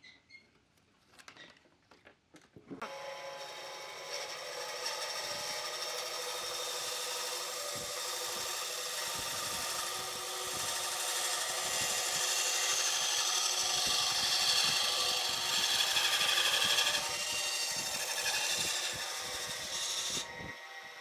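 An electric power tool starts about three seconds in, after a few light knocks, and runs steadily with a motor whine. It cuts out shortly before the end.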